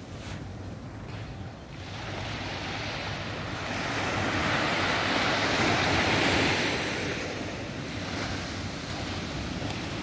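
Small surf breaking and washing up a sandy beach, one wash swelling to its loudest in the middle and easing off. Wind rumbles on the microphone underneath.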